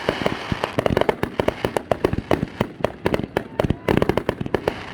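Fireworks going off in a rapid barrage: sharp bangs several times a second over a continuous crackle.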